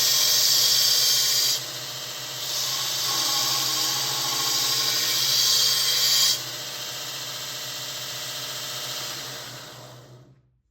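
Grizzly 2 x 42 inch 1 HP belt sander running with a 50-grit ceramic belt while a steel lawnmower blade is ground against it. There are two stretches of harsh grinding, about a second and a half and then about four seconds, with the motor's steady hum between and after. The sound fades out near the end.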